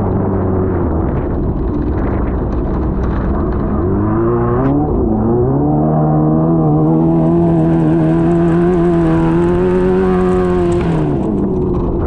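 Off-road race car's engine heard from an onboard camera, running hard: its pitch climbs about four to five seconds in, holds high for several seconds, then drops near the end. Tyres churn through mud, with a single sharp knock just before the climb.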